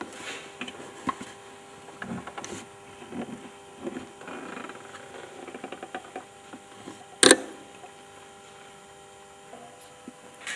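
Light clicks and rustles over a steady electrical hum, with one sharp click about seven seconds in.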